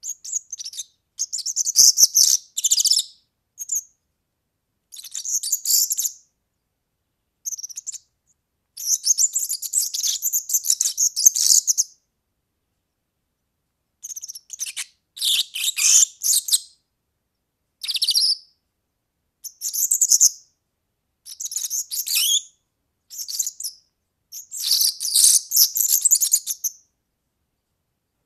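European serin singing: bursts of fast, very high-pitched, jingling twittering, each phrase lasting from under a second to about three seconds, with short silent gaps between phrases.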